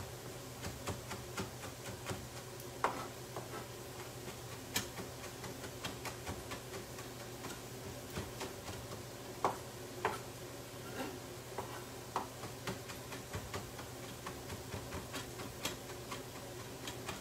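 Scattered light clicks and taps of kitchen handling, irregular and a few a second, over a steady low hum.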